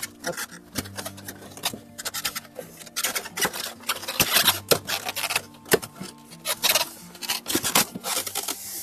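Polystyrene foam packing blocks rubbing and scraping against the sides of a cardboard box as they are worked loose and lifted out, in a run of irregular rasps.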